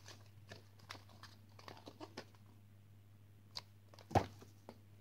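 A picture book being handled and its pages turned: a scatter of soft paper rustles and clicks, with one louder knock about four seconds in, over a faint steady low hum.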